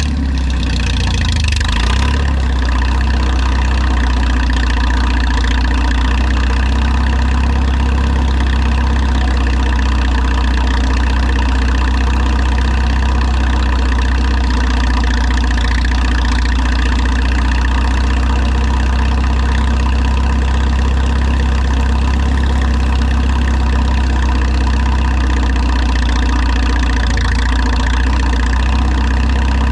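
Old Minneapolis-Moline tractor engine running steadily near idle. Its note shifts briefly in the first couple of seconds, then holds even.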